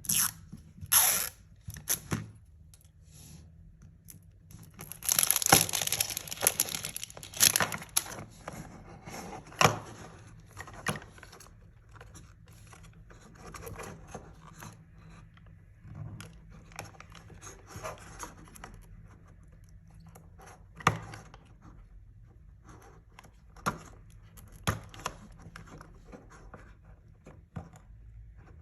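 Plastic packaging being torn open and crinkled by hand, loudest about five to eight seconds in, with scattered sharp clicks and taps of small plastic pieces.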